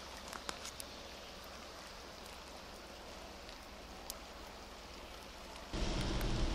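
Steady rainfall with scattered close drops ticking. Near the end it cuts abruptly to a much louder low rumble.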